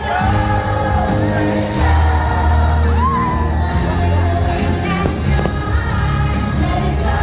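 Fireworks show soundtrack: a song with singing over a full music backing, played loud through outdoor speakers, with a few firework bursts thudding in and some whoops from the crowd.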